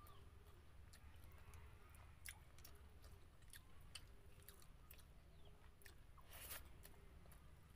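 A person chewing food, with irregular soft mouth clicks and crunches and a louder crunch about six and a half seconds in.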